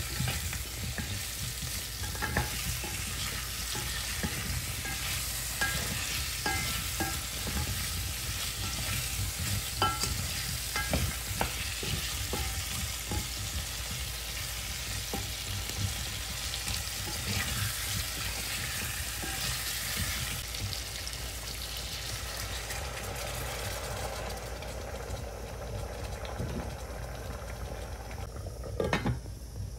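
Potato wedges frying in hot oil in a metal pot, a steady sizzle, with a spatula scraping and knocking against the pot as they are stirred. Near the end the sizzle gives way to a softer bubbling of liquid in the pot.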